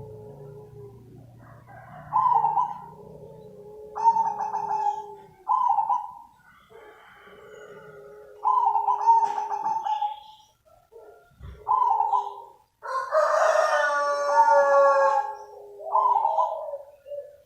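Zebra dove cooing its song: a series of short, clear notes, repeated every couple of seconds. About two-thirds in, a louder and longer call with several stacked tones stands out over the cooing.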